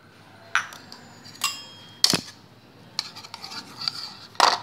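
Metal wire whisk clinking and scraping against the side of a mixing bowl while whisking a beaten egg mixture: a string of irregular clinks, the loudest near the end.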